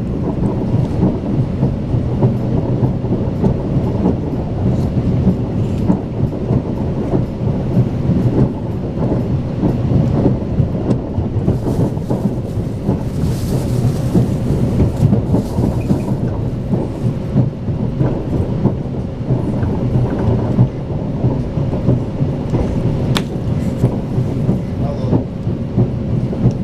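Steady low rumble of a Talgo Strizh express train running at speed, heard from inside the carriage, with a faint steady hum and a stretch of higher hiss about halfway through.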